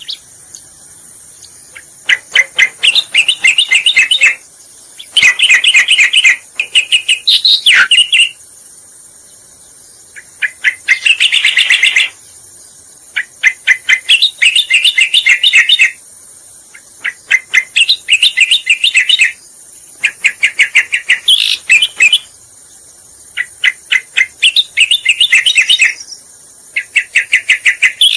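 Cica koreng (striated grassbird) song on a lure recording: phrases of rapid chattering notes, each about one to two seconds long, repeated over and over with short pauses between them.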